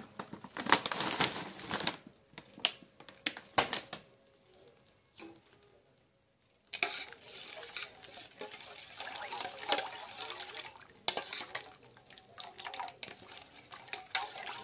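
A steel spoon stirring chocolate cereal in milk in a stainless steel bowl, clinking and scraping against the metal; the stirring starts about halfway through, after a quiet pause of a few seconds. Before the pause come rustling and clicks as cereal is poured from a plastic pouch into the bowl.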